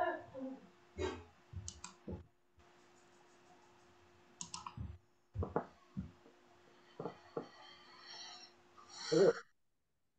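Scattered light clicks and knocks over a video call's microphones, with a faint steady hum under them and a short louder noise about nine seconds in.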